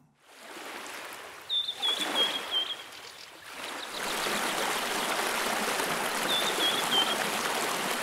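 Running-water ambience of a stream, louder and steady from about four seconds in, with a small bird giving a quick run of short high chirps and then a shorter run about six seconds in.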